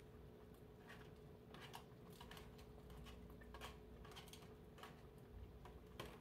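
Faint, irregular light clicks and taps as a spoon scrapes chopped green pepper off a plastic tray and the pieces drop into a pot, over a faint steady hum.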